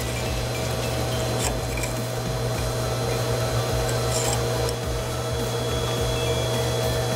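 Steady mechanical hum, with a few faint scrapes of metal about one and a half and four seconds in.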